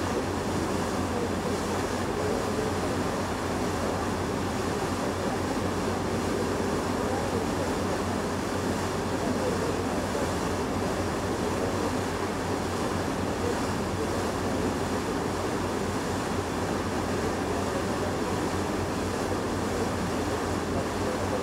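Steady rushing noise of a Hurtigruten coastal ship under way, heard at the bow: wind and water with a low, even hum beneath, unchanging throughout.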